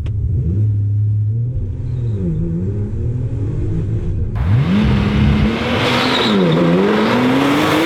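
Porsche 991.2 911 Turbo S twin-turbo flat-six on its stock exhaust, revving and accelerating. The pitch holds steady briefly, then rises and falls several times.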